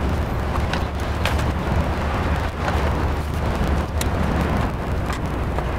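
Scattered sharp clicks and snaps of a hard plastic car grill being handled as its small retaining clips are pried loose, over a steady low rumble.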